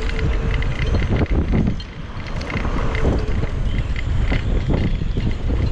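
Strong gusty storm wind buffeting the microphone, a heavy low rumble that swells and dips with the gusts.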